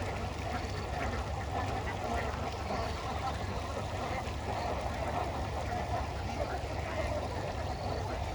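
A large flock of domestic ducks quacking all together in a dense, unbroken din, over a steady low rumble.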